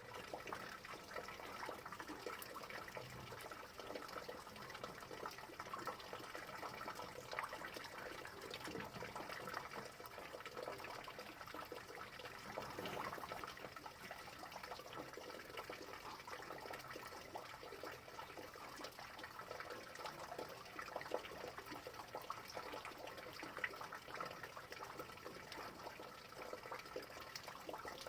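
Steady rain falling, a dense patter of drops over an even hiss.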